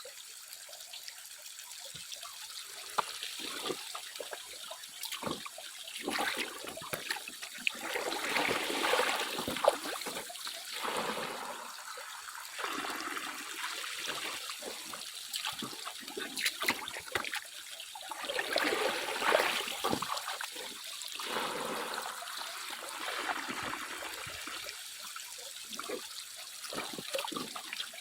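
Water trickling and splashing in uneven surges that swell and fade every few seconds, as in hand-panning for gold.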